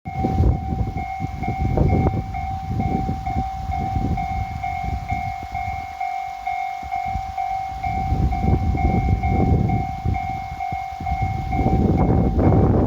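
A DF200 diesel-electric locomotive hauling a freight train past. There is a heavy low rumble of engine and wheels that swells and eases with uneven clatter over the rail joints, under a steady high-pitched whine.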